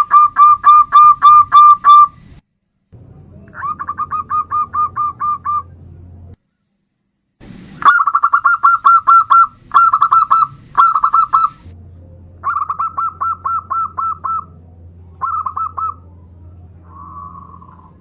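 Zebra dove (perkutut) cooing: rapid runs of short staccato notes, about four or five a second, in several bursts separated by brief pauses, ending with a softer, lower trill.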